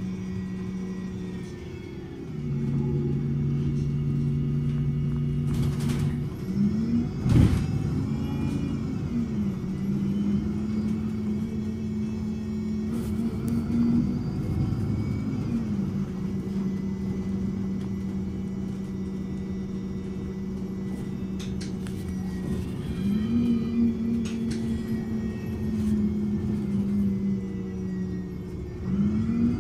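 MAN Lion's City bus's D0836 six-cylinder diesel idling: a steady low hum whose pitch shifts up and down a few times. A short, sharp knock comes about seven seconds in.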